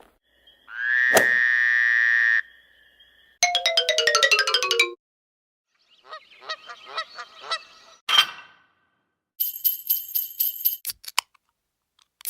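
A string of added cartoon sound effects: a held electronic tone, then a quick descending run of notes, a light tinkling patter, a sharp hit, and a high sparkly chime near the end.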